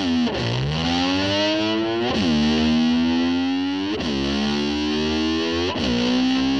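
Distorted electric guitar playing long upward slides that climb, drop back sharply and climb again about every two seconds, like an engine revving up through its gears.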